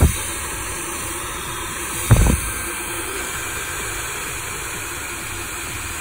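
Delta DC brushless centrifugal blower fan running, a steady rush of air like a hair dryer. Two short low thumps, at the start and about two seconds in.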